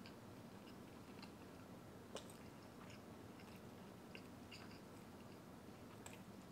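Faint chewing of a taco, close up: soft, wet mouth clicks scattered through, with one slightly sharper click about two seconds in.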